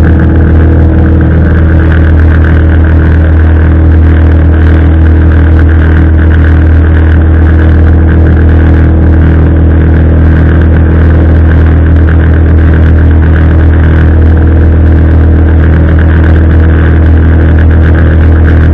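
Small boat's motor running loudly and steadily at cruising speed, its even drone unchanged throughout.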